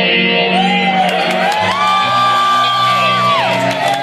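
Live rock band playing a slow, ballad-like passage of sustained electric-guitar chords. A high wailing note slides up about a second in, holds for about two seconds, then drops away.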